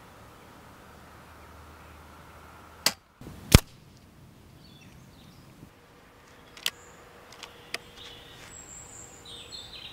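Weihrauch HW100 BP pre-charged air rifle with a silencer fired at a paper target: a sharp crack about three seconds in and a louder smack half a second later, then a few lighter clicks around seven seconds in. Birds call near the end.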